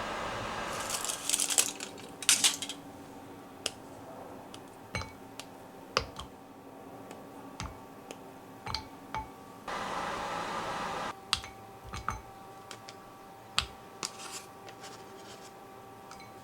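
Scattered light clicks and taps of kitchen utensils against bowls and dishes, busiest about two seconds in, with a short stretch of steady hiss near the middle.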